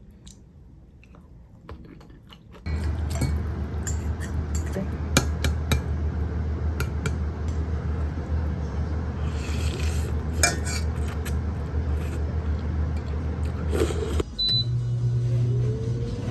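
Dishes and cutlery clinking over the steady low hum of a kitchen appliance. The hum switches on about three seconds in and stops near the end, and a different, higher hum follows.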